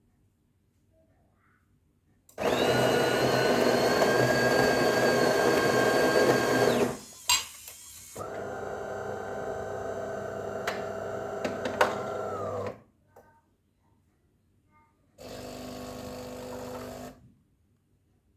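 Automatic coffee machine working through a cycle: a loud motor runs for about four and a half seconds, its whine rising as it starts and then holding steady, then stops with a click. A quieter motor runs for about four more seconds, and a short third run comes near the end.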